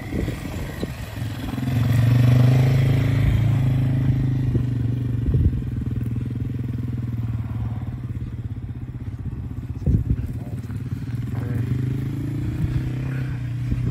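A vehicle engine running steadily at a constant pitch. It gets louder about two seconds in, then slowly eases off, with a couple of short knocks along the way.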